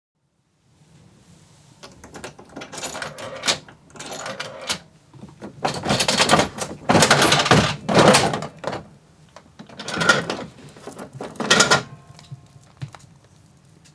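Dial of a toy gacha capsule machine being turned by hand, its mechanism clicking and rattling in several loud bursts, with the dispensed egg clattering down into the outlet.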